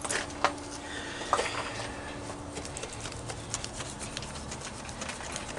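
Scattered light taps and scrapes of hand tool work on a wet cement wall patch.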